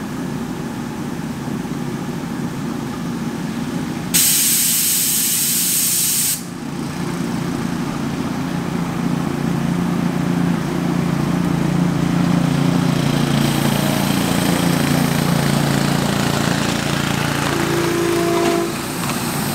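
Ridable live-steam miniature locomotive venting steam: a loud burst of hissing about four seconds in that lasts about two seconds, over a steady background hiss and a low hum. A short pitched toot comes near the end.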